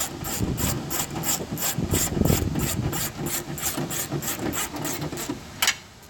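Hand ratchet wrench running a 7/16 nut down onto a stud: quick even ratcheting strokes, about three or four a second, stopping near the end with one sharper click as the nut seats.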